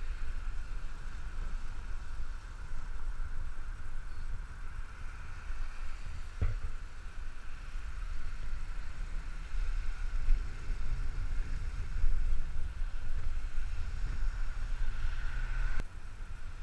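Wind rushing over a bike-mounted action camera's microphone, with the hiss of bicycle tyres on wet asphalt, while riding a fixed-gear bicycle through rain-soaked streets. A single thump about six seconds in.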